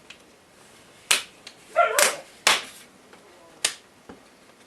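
Plastic snap clips of a laptop screen bezel popping loose as it is pried off by fingernail: about four sharp clicks a second or so apart.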